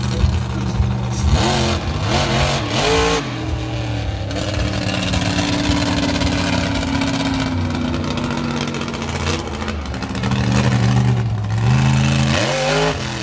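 Monster truck engine revving hard in quick bursts, holding a steady, heavy run for several seconds in the middle, then revving up and down again near the end.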